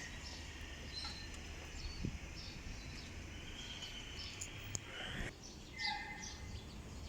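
Faint background: a low steady hum with scattered short, high bird chirps and a brief held high whistle about halfway through.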